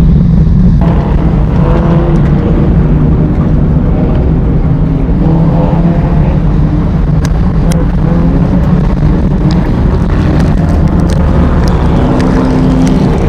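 Race car engines running loud under load, their pitch rising and falling as the cars rev, over a heavy low rumble, with scattered sharp clicks in the second half.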